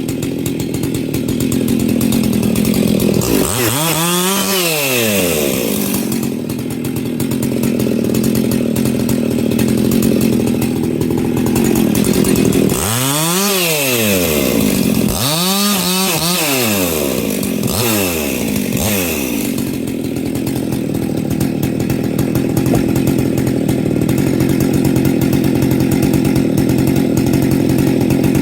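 Two-stroke Husqvarna 61 chainsaw fitted with a 66 top end and a high-compression pop-up piston, bucking small firewood rounds. Its revs rise and fall several times as the chain cuts in and out of the wood.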